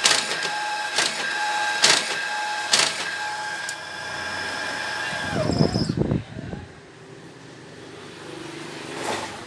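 An Epson 1390 printer converted into an invoice perforating machine, running: a steady motor whine with a sharp clack about once a second. About five and a half seconds in, the whine drops in pitch and dies away.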